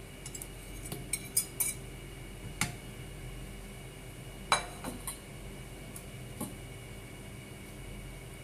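Clinks and taps of kitchenware, a mixing bowl and a wire whisk against a round metal cake pan. There is a quick run of them in the first two seconds, and the loudest, ringing clink comes about four and a half seconds in, over a faint steady hum.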